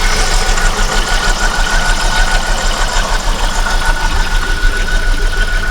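Holden VX Commodore's 3.8-litre Ecotec V6 idling steadily after three years parked, with a thin steady whine over the rumble.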